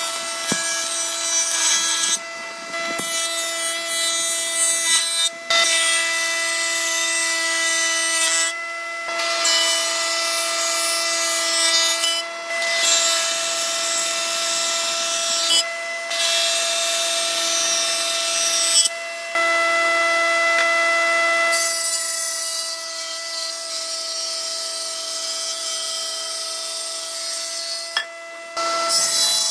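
Electric power tool running steadily, its motor whine constant, while it grinds or sands into wood with a harsh rasping noise. The rasping drops out briefly every few seconds while the motor keeps running.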